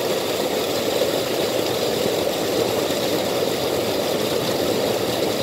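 Water rushing over a small weir into a stream, a steady unbroken rushing noise.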